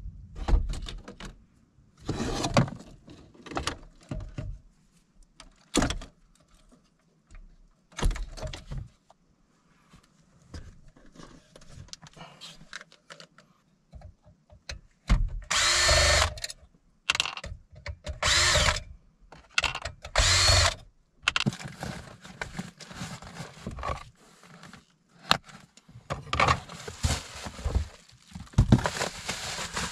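Cordless drill-driver run in several short bursts, its motor whine spinning up and down, backing the screws out of the car navigation unit's mounting brackets. Around it, metal parts clatter as they are handled, and near the end a cardboard box and its plastic packing rustle as they are opened.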